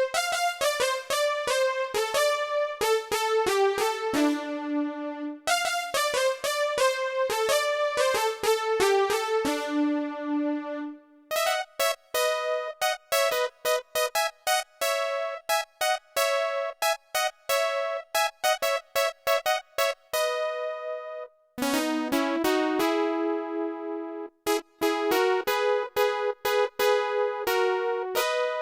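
Solo electronic keyboard playing quick melodic phrases in an electric-piano-like synth voice, with short pauses between phrases.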